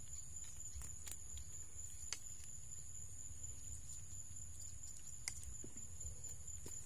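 Outdoor ambience: a steady high-pitched insect drone over a low rumble, with a few faint sharp clicks about two and five seconds in.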